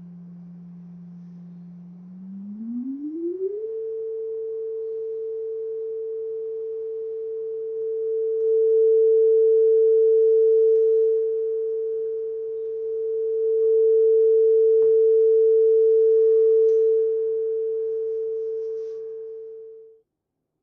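A pure sine test tone played through a small DIY 5-watt audio amplifier. It glides down to a low hum, holds, then rises to a steady mid pitch. Twice it swells louder and takes on a harsh edge of added overtones as the amplifier distorts, then it cuts off abruptly near the end.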